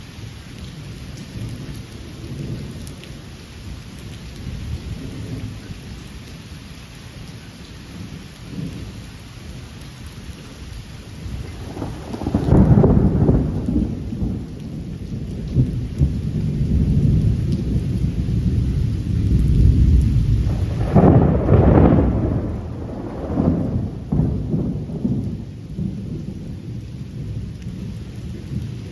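Steady rain falling, with a long roll of thunder that rumbles in a little under halfway through, swells into a second, sharper and louder peal about two thirds in, then rolls away.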